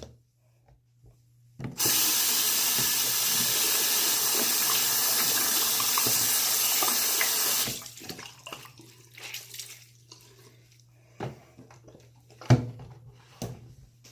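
Water tap running steadily into a sink for about six seconds, then shut off. A few knocks and clicks follow near the end, one of them sharp.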